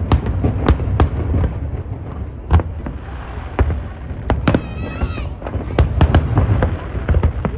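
Fireworks going off: an irregular series of sharp bangs over a low rumble.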